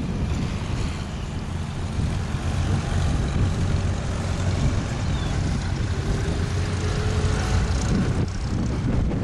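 Vintage farm tractor engines running as the tractors drive past one after another, with wind buffeting the microphone.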